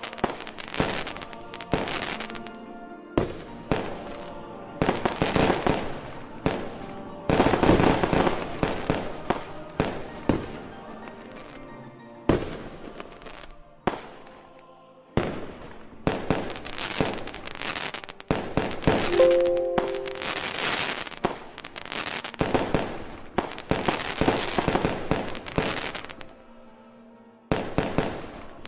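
Aerial firework shells bursting one after another, dozens of sharp bangs, each trailing off before the next.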